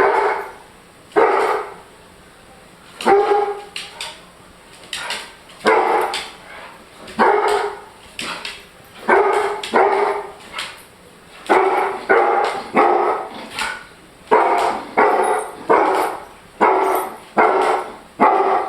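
German shorthaired pointer barking in a long series of loud single barks, roughly one a second, coming closer together in the second half.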